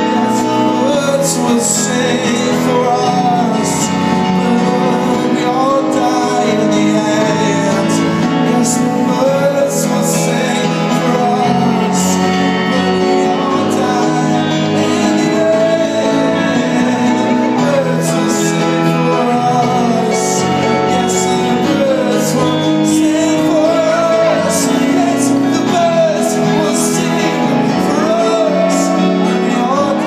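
Live band music led by guitar, in a passage without lyrics: a wavering melody line moves over steady chords, with sharp high hits scattered throughout.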